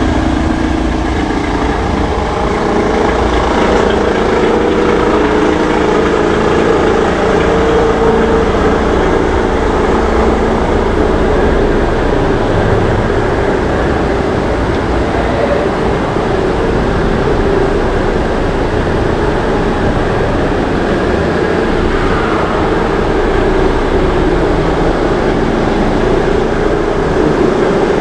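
A car engine running steadily at low speed, with a low rumble.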